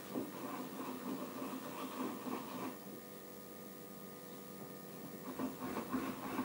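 Faint scraping and shifting as a large glass jar of strawberries, sugar and moonshine is tilted and rocked on a tabletop to mix the sugar in, easing off in the middle and starting again near the end. A steady faint hum runs underneath.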